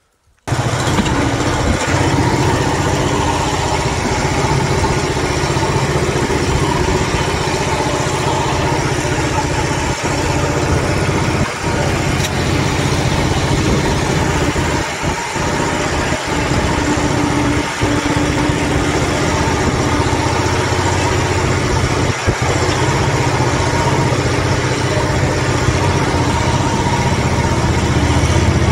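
MTZ walk-behind tractor's engine running steadily under load while its front blade pushes wet, heavy snow, with a few brief dips in the engine note.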